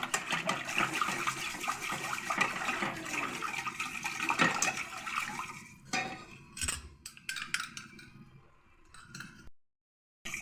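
A spoon stirring béchamel sauce of flour, butter and milk in a pot: wet, sloshing liquid sounds with small clinks of the spoon against the pot. The busy stirring thins to scattered clinks about six seconds in, and the sound drops out briefly near the end.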